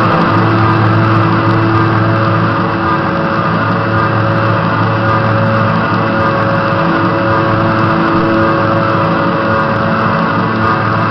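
Steady, dense electronic drone music with held low notes that shift every few seconds.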